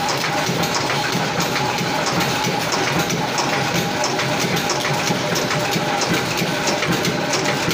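Nut-and-bolt factory machinery running steadily: a continuous mechanical noise with a steady hum and many quick clicks.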